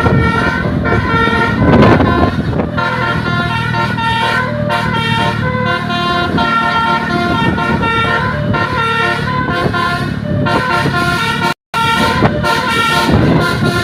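Telolet bus horns playing quick, repeating multi-note melodies over the low hum of running bus engines. The sound drops out for a split second near the end.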